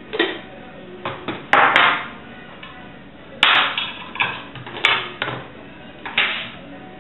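Tableware handled on a glass-topped table: a mug and cafetière set down, a table knife taken up and a plastic spread tub's lid opened. It comes as a dozen or so short, sharp knocks and clatters, loudest about a second and a half in and again about three and a half seconds in.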